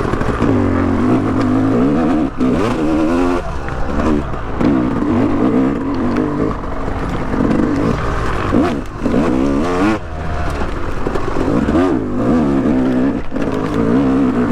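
Yamaha YZ250X two-stroke dirt bike engine revving up and down over and over as it is ridden along a trail, the throttle opened and shut every second or two with a few brief cuts.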